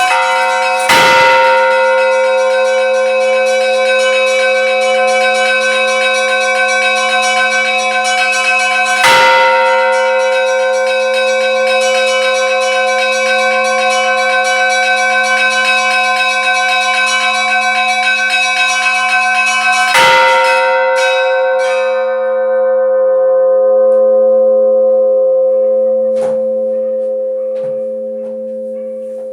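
A large bell struck three times, several seconds apart. Each stroke rings on in a steady low hum with many overtones above it. After the third stroke the ringing slowly fades away.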